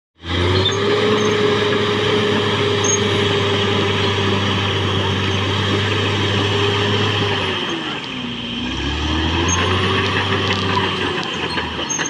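Caterpillar D6R XL bulldozer's diesel engine running steadily as the machine works, its pitch sagging a little past halfway and then climbing back, and dropping again near the end.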